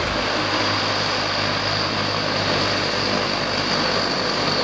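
Aircraft engine running steadily: a constant drone with a high, even whine over it.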